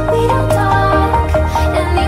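Electronic music track with a steady beat, sustained bass notes and a repeating melodic line; the bass steps down to a lower note about a second in.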